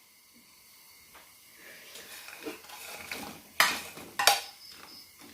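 A metal cooking utensil knocking and clinking against a cooking pot, with a few light knocks and two sharper clinks that ring briefly, about three and a half and four seconds in.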